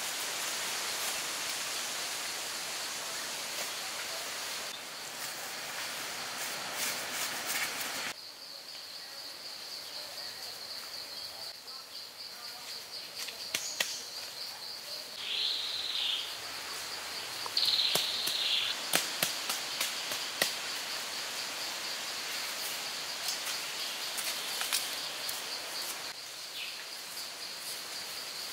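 Outdoor woodland sound: a rustling hiss for the first eight seconds, then a steady high insect drone that runs on. Scattered sharp clicks and knocks from hand work sound over it, with two short chirps midway.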